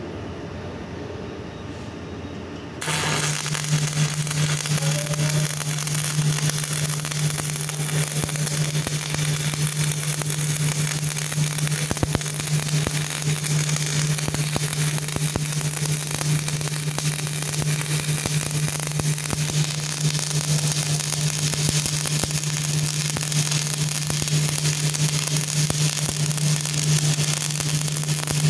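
Stick-welding (SMAW) arc on DC from a welding rectifier with an E6013 electrode: the arc strikes about three seconds in and then burns with a steady crackle and sizzle over a constant low hum.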